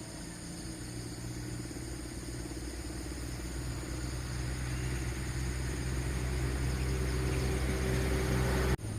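A motor vehicle's engine running steadily and growing gradually louder over several seconds, with a steady high insect drone behind it.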